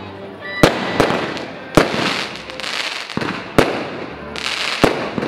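Aerial fireworks going off overhead: sharp bangs every second or so, with crackling between them.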